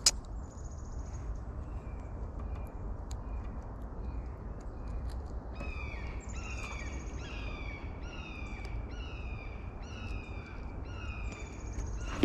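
A bird calling over and over: short, falling calls that start faintly and, about halfway through, come louder, roughly three every two seconds. A sharp click sounds at the very start.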